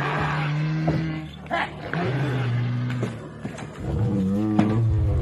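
Recorded dinosaur roars: a run of deep, drawn-out growling roars, four or so in a row with short breaks between them, with a few knocks in between.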